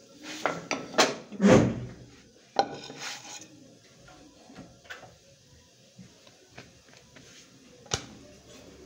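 Metal cookware clattering and knocking as a pan is lifted off the gas stove and set aside: several sharp knocks in the first few seconds, the loudest about a second and a half in. Then quieter, with one sharp click near the end.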